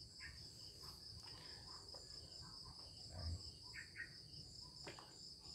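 Near silence with a steady, high-pitched cricket trill in the background and faint scattered handling sounds.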